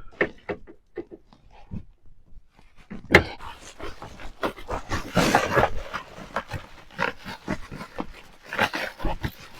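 Foam pieces being pulled and torn out of a van's roof: a few sharp clicks, then from about three seconds in a steady run of crackling, crunching and scraping.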